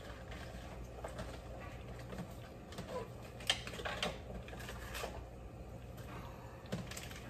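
Scattered light clicks, taps and rustles of bok choy being handled at the kitchen counter and dropped into a soup pot, over a steady low hum.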